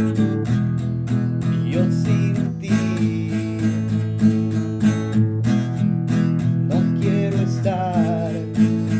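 Guitar-led instrumental music: steady strummed chords with a regular rhythm, and a lead line that bends in pitch about seven to eight seconds in.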